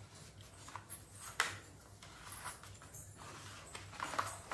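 Light taps, clicks and rustles of a paperboard phone box and its inner tray being handled, with a sharp tap about a second and a half in and a short cluster of scrapes near the end, over a faint low hum.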